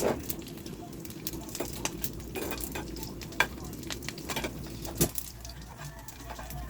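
Food frying in hot oil in a pan, a steady sizzle, with a utensil clicking and scraping against the pan in sharp knocks, the loudest about three and a half and five seconds in.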